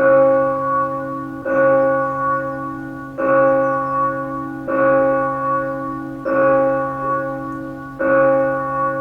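A single church bell tolling, struck six times at about one-and-a-half-second intervals, each stroke ringing on into the next.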